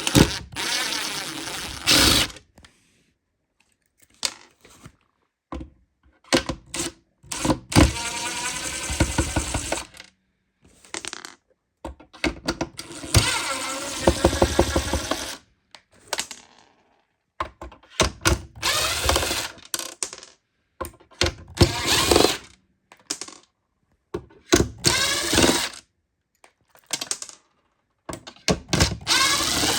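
Small electric screwdriver or drill whirring in repeated bursts of one to three seconds, backing out the screws of a plastic device case, with short clicks and knocks between the bursts.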